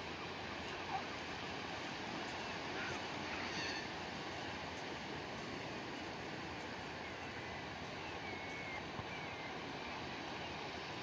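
Steady wash of sea surf and wind, with a few faint bird calls that glide in pitch in the second half.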